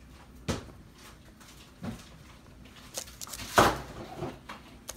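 Handling noise as cubes of cold butter are tipped and dropped from a plastic container and paper wrapper into flour in a glass bowl: a handful of separate soft knocks and rustles, the loudest a thump about three and a half seconds in.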